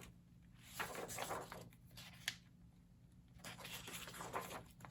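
Faint rustling of old book pages being handled as an illustrated plate is worked out of the binding, with a single small click a little over two seconds in.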